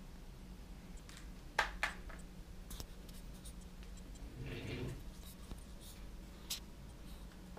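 Handling noise as a handheld camera is moved around the ROV: a few sharp clicks and knocks, and a short rustling scrape about four and a half seconds in, over a faint steady hum.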